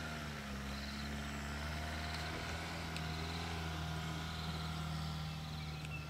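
Game-drive vehicle's engine idling steadily, a low even hum.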